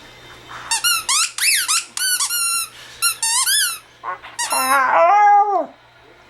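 A rubber squeaky toy squeaked over and over in quick, high, wavering squeaks as a puppy chews it. Near the end comes a longer drawn-out vocal noise from the puppy that drops in pitch.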